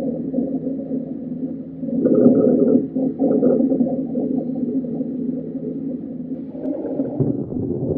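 Lung sounds heard through a stethoscope in bronchiolitis: breath sounds with a steady musical wheeze and short crackles, swelling with each breath about two seconds in and again near the end. The wheezes and crackles are the signs of small-airway inflammation typical of bronchiolitis.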